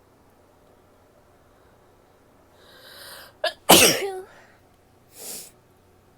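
A woman sneezing once: a breathy in-breath builds up, catches briefly, then a single loud sneeze bursts out with a short voiced tail, followed by a short breath about a second later.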